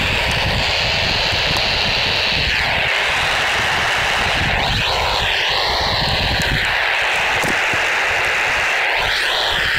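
Steady FM receiver hiss from a Baofeng UV-5R handheld with its squelch open on the SO-50 satellite downlink, the satellite only about 1° above the horizon so the signal is buried in noise. Faint wavering tones come through the hiss around the middle and again near the end, over a low rumble of wind on the microphone.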